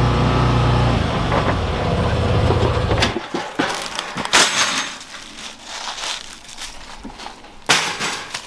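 A vehicle engine running steadily that cuts off about three seconds in, followed by footsteps crunching through dry leaf litter and a wire cage trap rattling as it is carried and set down, with two sharp clatters, the second as the trap lands at the base of a tree.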